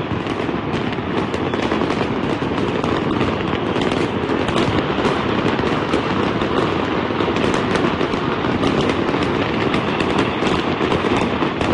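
Many fireworks and firecrackers going off at once, a dense unbroken crackle of rapid pops with no pause.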